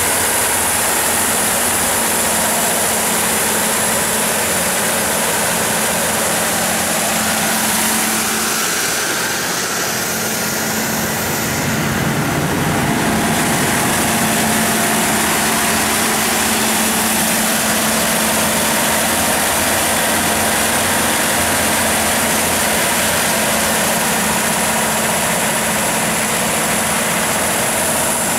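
The John Deere 6135HF485 six-cylinder diesel engine of a Baldor 350 kW generator set running steadily at constant speed, with a steady whine over the engine note. It gets briefly louder about twelve seconds in.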